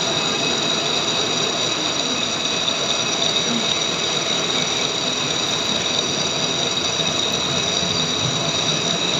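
Lathe running steadily: a continuous machine noise with a constant high whine.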